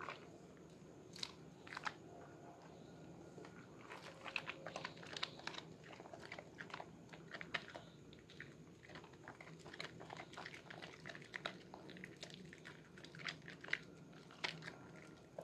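Wet hands squeezing and rubbing a bar of Sehat red soap in a basin of soapy water, with no sponge: quiet squelching of lather with many small wet crackles and clicks.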